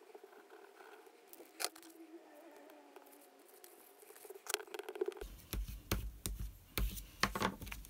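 Card stock being handled and pressed down on a craft mat: faint at first, then from about five seconds in a rapid run of taps, clicks and paper scraping.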